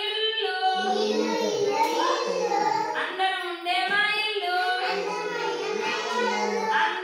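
Young children singing a Telugu nursery rhyme together in chorus, led by a woman, with no instruments.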